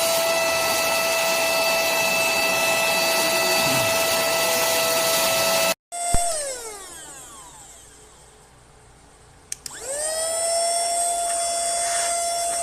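Handheld cordless vacuum cleaner motor running with a high, steady whine and rush of air. Just before halfway the sound breaks off, then the motor winds down with a falling whine. There is a click, and it spins back up with a rising whine and runs steadily again.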